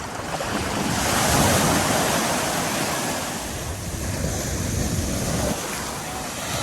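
Ocean surf breaking and washing in, swelling about a second in and easing off toward the middle, with wind buffeting the microphone.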